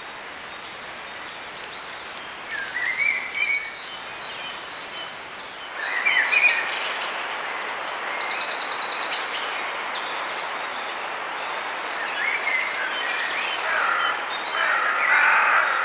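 Dawn chorus of many songbirds: overlapping chirps, trills and rising phrases over a steady hiss that grows louder about six seconds in. Louder, harsher calls come in near the end.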